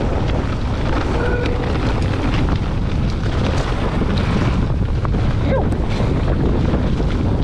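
Wind buffeting the action camera's microphone as a mountain bike rides down a dirt trail, a loud steady rush with scattered clicks and rattles from the bike and tyres on the ground.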